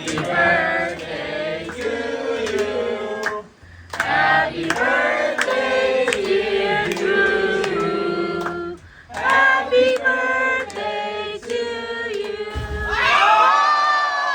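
A group of people singing together in several phrases, the last one held long, with hand claps.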